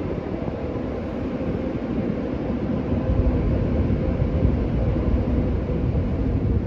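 Touch-free car wash spraying water onto the car, heard from inside the cabin as a steady, bass-heavy rush of spray with a faint steady hum.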